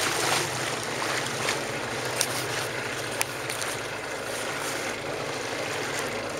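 Steady rushing noise of wind and water around a small boat on a calm lake, with two sharp clicks about two and three seconds in.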